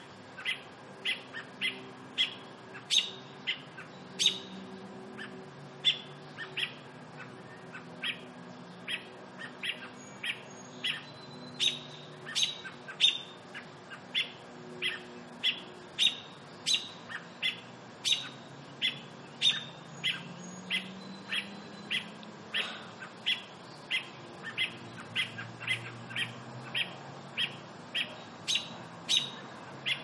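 American robins giving a long, steady series of short, sharp single-note calls, about two a second: the robin's agitated alarm call.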